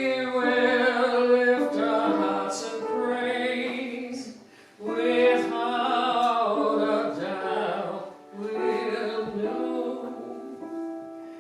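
A slow hymn sung in church, long held notes in phrases, with short breaks about four and a half and eight and a half seconds in.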